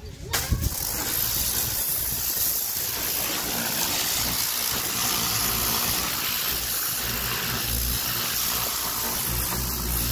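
High-pressure car washer jet spraying: a thump as the spray comes on about half a second in, then a steady hiss of water with a low rumble underneath.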